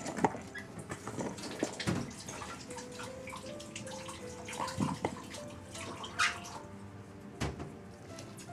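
A few sharp knocks and short rustles, as a black cat moves against and into an open cardboard box, over soft melodic background music.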